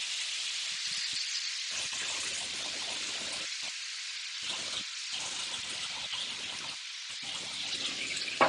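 Red Bull energy drink sizzling on a hot flat-top griddle: a steady hiss with faint scattered crackles.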